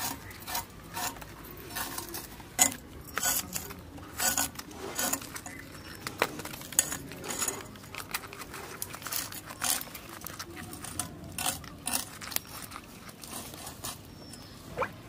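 Live climbing perch (koi fish) flapping and jumping on a hard floor: irregular sharp slaps and flicks, several a second, the loudest about two and a half seconds in.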